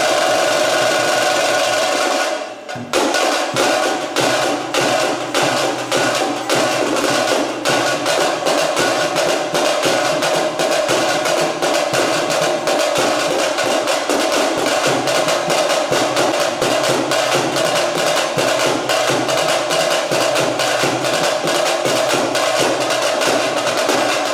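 Veeragase folk dance music: fast, driving drumming with a steady held tone over it. The drumming drops briefly about two and a half seconds in, then resumes.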